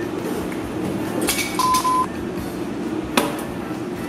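An electronic beep sounding as a short pair of high, steady tones, repeating about every two and a half seconds over a steady background hum. A sharp click about three seconds in.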